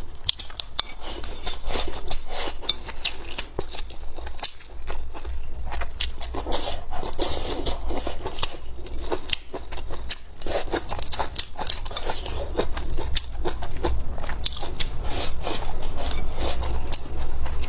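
Close-miked eating: chewing mouthfuls of rice and blistered green chili peppers, with many short clicks and scrapes of wooden chopsticks against a ceramic bowl.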